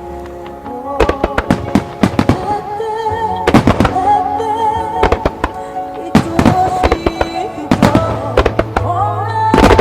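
Fireworks shells bursting in quick, irregular bangs, several a second at times, over music played for the music-synchronized show. The bangs begin about a second in.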